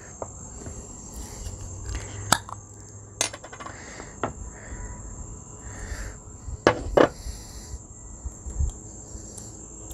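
Metal spoon clinking against a glass jar of pizza sauce while scooping and spreading sauce, with several sharp clinks. Crickets chirr steadily behind it.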